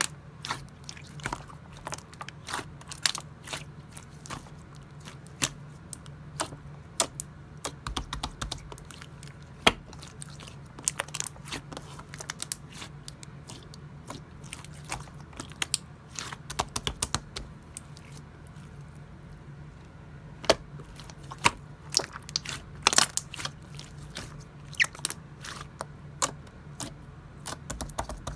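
Clear slime being squished and pressed by hand, giving irregular sharp wet clicks and pops, in clusters, over a steady low hum.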